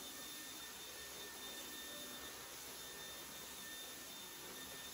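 Cordless stick vacuum cleaner running steadily: a faint, even hiss with a thin, steady high whine over it.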